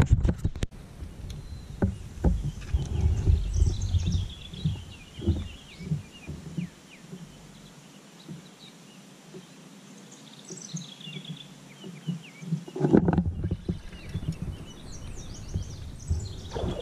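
Songbirds singing from the shore, repeated chirps and falling trills heard twice, about three seconds in and again about ten seconds in. Underneath, a low gusty rumble of wind and water around the moving kayak drops away for a few seconds in the middle and returns strongly near the end.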